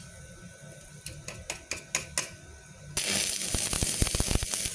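Stick-welding arc from a MultiPro EG 200 ASC inverter welder burning a 2.6 mm LB-52U low-hydrogen electrode: the arc goes out at the start, a few sharp clicks follow as the rod is struck against the plate, then the arc catches again with a loud hiss about three seconds in and cuts out at the end. The arc keeps dying because the machine lacks the current or arc stability for LB electrodes.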